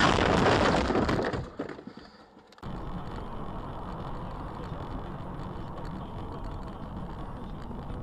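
A loud rushing noise fades out about a second and a half in. After a short lull, steady road and engine noise from a car driving along a city road, heard from inside the cabin by a dashcam.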